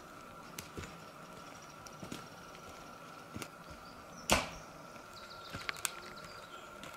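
Dry sticks and dead branches cracking and snapping in scattered sharp snaps, with one louder crack about four seconds in and a quick cluster of snaps near the end.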